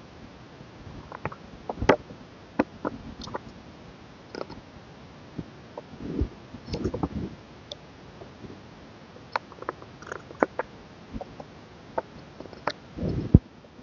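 Hands handling a K-pop album's packaging and contents: scattered taps, clicks and short rustles of paper and card, with a louder rustle near the end.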